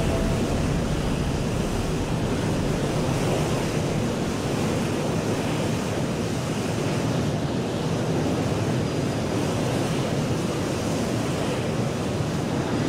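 Steady rushing noise of wind over an aircraft carrier's flight deck, even throughout with no distinct knocks or tones.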